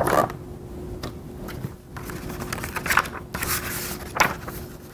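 Pages of a large picture book being turned and flipped by hand: several short paper swishes and rustles, the loudest at the start, about three seconds in and near the end, over a faint steady hum.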